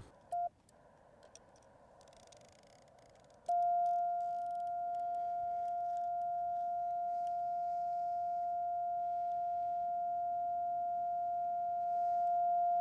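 Yaesu FT-891 transceiver's CW sidetone: a short beep, then a steady beep held for about nine seconds that cuts off sharply. The Morse key is held down and the radio is transmitting a continuous carrier.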